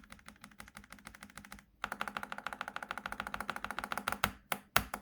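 Greased Outemu Lanny mechanical keyboard switches in a polycarbonate plate being typed on. Quick light keystrokes for the first second and a half, then faster, louder typing from about two seconds in, ending in a few separate heavier keystrokes.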